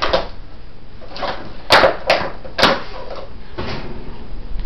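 Empty plastic water bottle being knocked about and bitten by a playing dog: sharp plastic cracks and knocks, three in quick succession about two seconds in, with softer crinkling in between.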